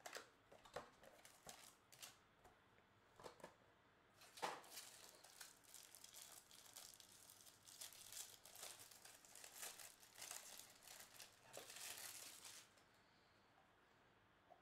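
Bowman Chrome hobby box opened with a few light clicks and rustles of cardboard, then a foil trading-card pack torn open and crinkling for several seconds, stopping a couple of seconds before the end.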